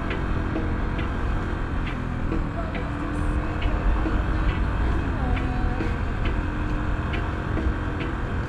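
Motorcycle riding at city-street speed: a steady engine and wind rumble on the microphone, with a short regular tick a little more than once a second.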